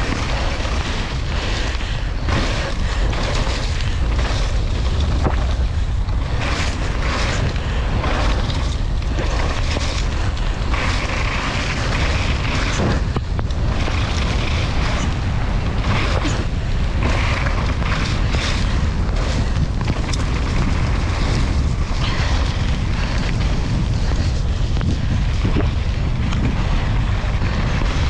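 Wind rushing over a GoPro microphone as a mountain bike descends a wet downhill track at speed, with irregular knocks and rattles from the bike over rough ground.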